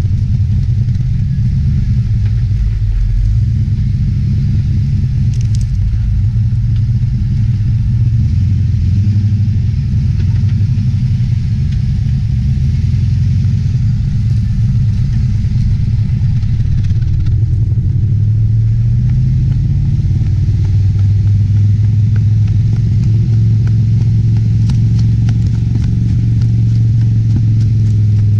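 A 4WD's engine running steadily at low speed on a gravel track, with tyres crunching over gravel and stones and occasional sharp clicks. The engine note strengthens a little about two-thirds of the way through.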